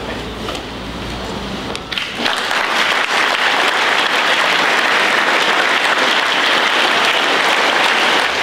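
A large audience applauding, swelling in about two seconds in and then holding steady and dense.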